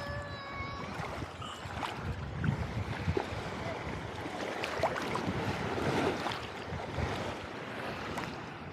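Sea waves washing and splashing in the shallows, with wind buffeting the microphone.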